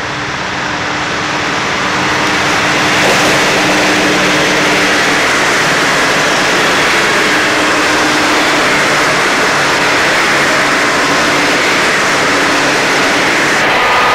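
A long set of V/Line Sprinter diesel railcars approaching and passing close by, with their engines running and steady wheel and rail noise. It grows louder over the first few seconds, then holds steady as the cars go past.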